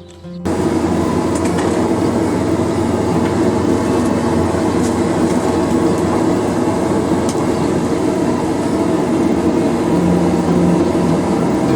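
Blacksmith's forge running with a steady rushing noise that cuts in abruptly just after the start, heating a steel slot punch for a normalizing cycle.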